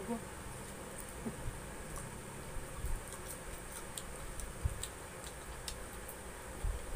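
Close-up eating sounds: irregular small clicks of chewing and lip smacks, and fingers picking at fried tilapia. Two soft low thumps come about two-thirds of the way through and near the end.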